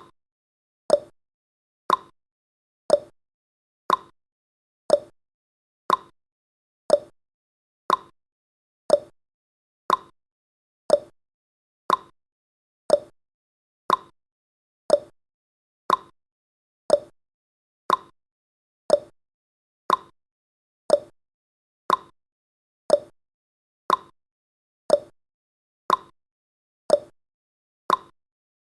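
Countdown timer's ticking sound effect: one short, sharp tick every second, each dying away quickly, with silence between.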